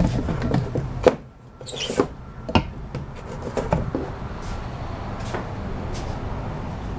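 Scattered knocks and clicks, most of them in the first four seconds, over a low steady background hum.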